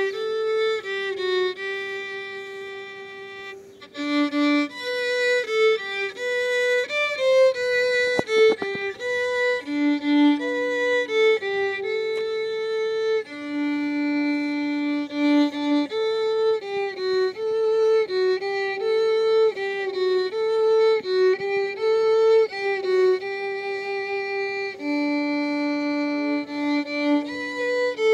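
Unaccompanied violin playing a melody of held and moving bowed notes; a phrase fades out about three seconds in and the playing picks up again a moment later.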